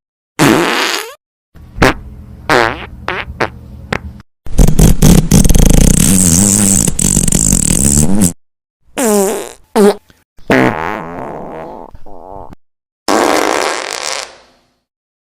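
A run of fart sound effects played one after another with short silences between: about six in all, some brief with a sliding pitch, others long and sputtering. The longest and loudest runs for nearly four seconds in the middle.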